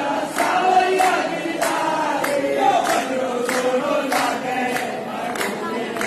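A crowd of devotees chanting a Hindu devotional chant together in unison, with a steady beat of sharp strikes about every two-thirds of a second.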